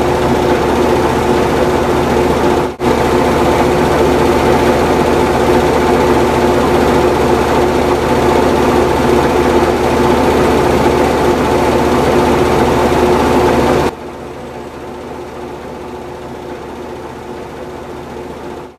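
A metal-working lathe running and cutting: a loud, steady machine hum with several fixed tones over a dense grinding noise. It breaks off for an instant just under three seconds in, and about fourteen seconds in it drops sharply to a much quieter steady run.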